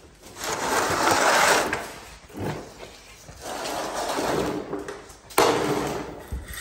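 Plastic oil drain pan scraping across a concrete floor as it is pulled out from under the car, in two long scrapes, with a sharp knock about five seconds in.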